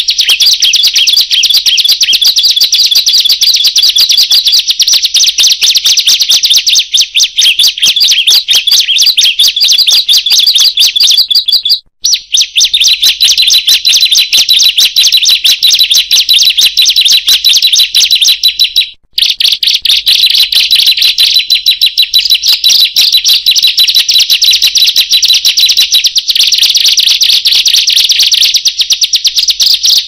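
Ciblek (prenjak) songbird calling loud and fast: a shrill, unbroken stream of rapid chirps, pausing briefly twice, about twelve and nineteen seconds in.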